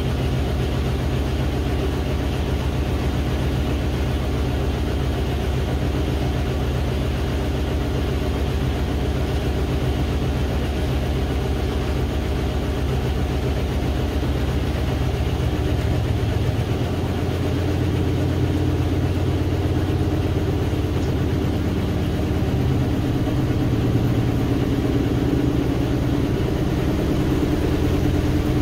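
GE GTW720BSN0WS top-load washing machine running mid-cycle: a steady motor hum and drum drone, picked up through the lid. About sixteen seconds in the hum grows slightly louder and changes tone.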